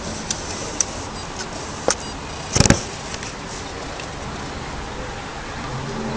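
Steady outdoor city background noise with a few short clicks, and one louder sharp knock about two and a half seconds in.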